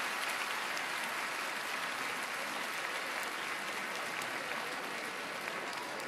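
Large theatre audience applauding, a dense steady clapping that eases off slightly toward the end.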